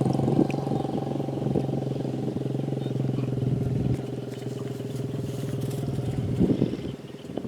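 A small engine running steadily at an even speed, with a brief voice near the end.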